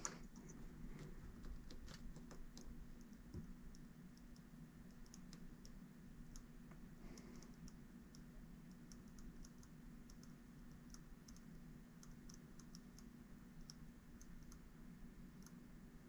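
Near silence: room tone with a low steady hum and faint, irregular light clicks scattered throughout.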